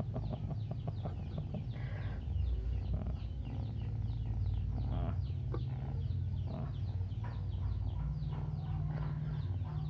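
Chickens in the background: a steady stream of short, high, falling chirps, several a second, over a low steady hum.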